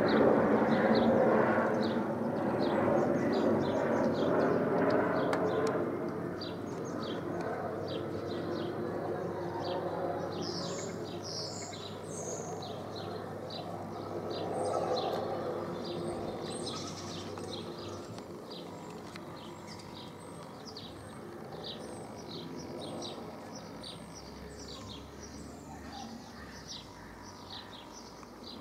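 Airbus Helicopters H125 single-engine turbine helicopter flying over, its rotor and engine noise loudest at the start and fading steadily as it moves away. Small birds chirp throughout, with many short high chirps.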